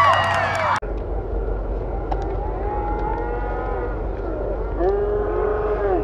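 Spectators cheering and shouting, many voices overlapping. The loud cheering breaks off abruptly about a second in, and scattered drawn-out shouts and calls continue at a lower level.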